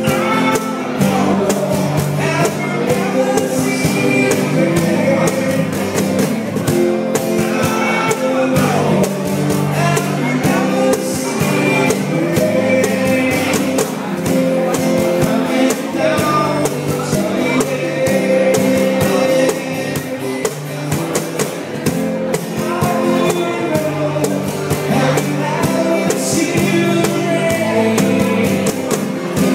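A man singing into a microphone while strumming an acoustic guitar in a steady rhythm, live.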